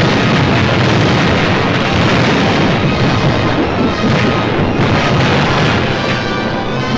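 Continuous din of wartime explosions and anti-aircraft fire, mixed with orchestral film music. Near the end the music comes through more clearly.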